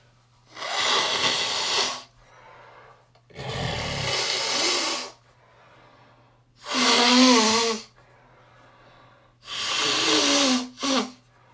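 A congested person blowing their nose hard into a tissue, wet and congested. There are four forceful blows with breaths between: the first two are rushing and wet, the last two turn into loud honks, and a short extra puff follows the fourth.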